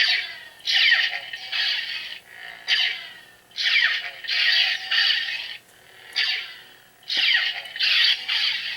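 Electronic blaster-deflection sound effects from a Force FX Elite Darth Revan lightsaber's built-in speaker, triggered about ten times in quick succession, often in pairs, each a sharp zap with a falling pitch sweep. The saber's faint steady hum runs underneath.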